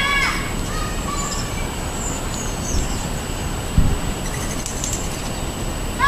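Songbirds calling, with a quick run of rising chirps at the start, scattered short chirps and thin high tweets through the middle, and another rising call at the end, over steady background noise. A dull low thump comes a little before four seconds in.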